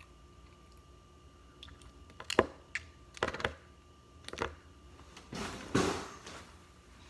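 Small objects being handled close by: three sharp knocks and clicks a second or so apart, then a longer rushing noise about five and a half seconds in.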